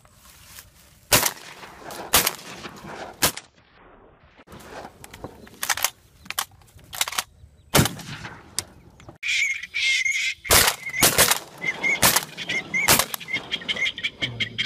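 A series of shotgun shots fired at flying ducks, about a dozen in all, some loud and close and others fainter, several coming in quick pairs. From about nine seconds in, waterfowl call over and over between the shots.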